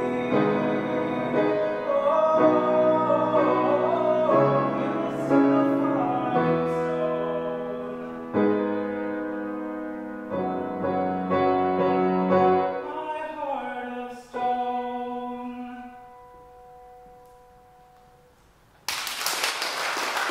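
A grand piano and a singing voice in the closing bars of a song; the last chord rings out and slowly fades away. Applause breaks out suddenly near the end.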